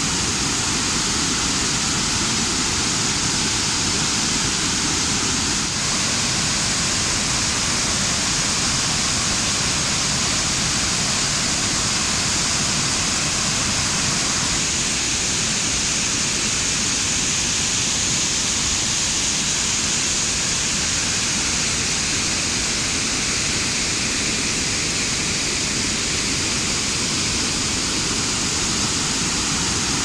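Rain-swollen waterfall and the stream below it in spate, a steady, even noise of fast, churning floodwater. It shifts slightly in tone twice.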